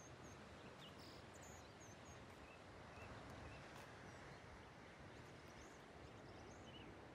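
Faint outdoor ambience: a steady, even background hiss with scattered short, high bird chirps throughout.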